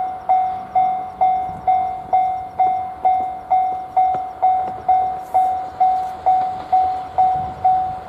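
Railway level-crossing warning alarm ringing, one bell-like clang after another, a little over twice a second and evenly spaced.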